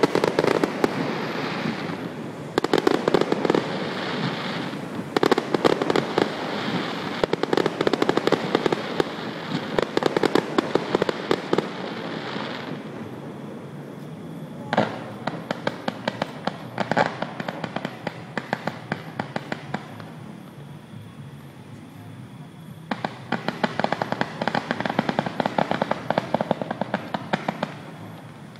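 Fireworks display: aerial shells bursting in dense volleys of crackling bangs. The volleys ease off a little under halfway through, with only scattered bangs for several seconds, then a fresh barrage of crackles starts about four-fifths of the way in.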